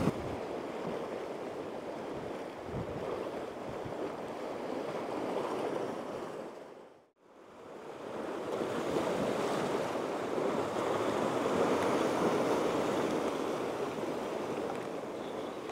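Sea waves washing against shore rocks: a steady rushing surf that dies away briefly about halfway through and then comes back.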